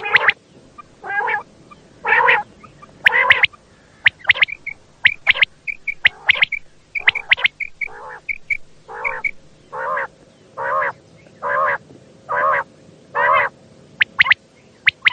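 Quail calling: quick sharp notes and short high whistles, then a run of harsh, buzzy calls repeated about once a second.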